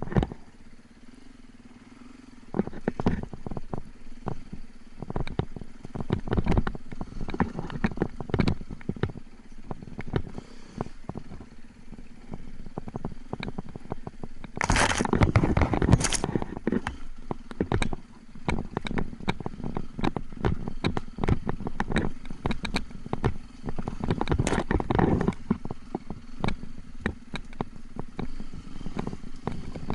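Enduro motorcycle ridden over rough trail, with a steady hum and frequent knocks and rattles from the bike. Two loud bursts of splashing come about halfway through, in a river crossing.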